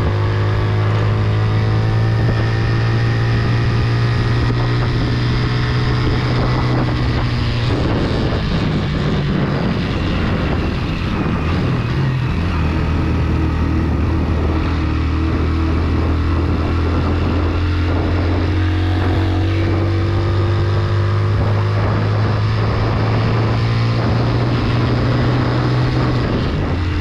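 Motorcycle engine running steadily under load. Its pitch wavers and drops about a third of the way in, then holds at a lower, steady note.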